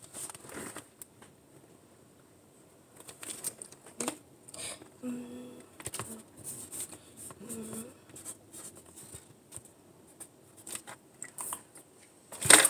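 Pen scratching and tapping on paper while drawing, with scattered small ticks and light paper handling. Two short hummed sounds in the middle, and one loud sharp hit near the end.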